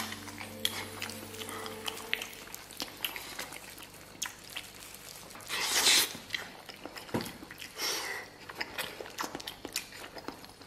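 Close-up eating sounds of a man biting and chewing braised beef knee bone, meat and tendon, with many short wet clicks and smacks. There is one louder sound, under a second long, about six seconds in.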